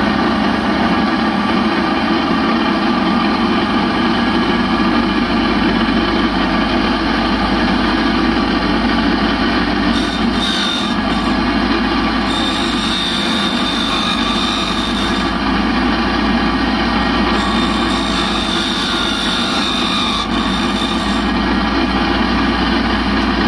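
Valve refacing machine running steadily, its grinding wheel cutting the pitted sealing face of a motorcycle engine valve; a thin, high grinding tone comes in twice in the middle as the stone bites.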